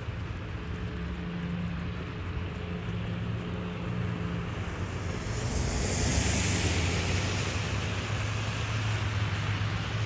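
Road traffic on a snowy city street: a steady low engine hum, with a rushing hiss that swells up about halfway through as a vehicle passes.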